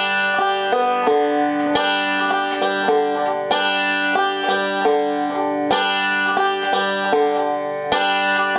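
Five-string resonator banjo picked slowly on open strings, repeating a short roll lick in which the third and first strings are pinched together. The picked notes come in an even, repeating pattern.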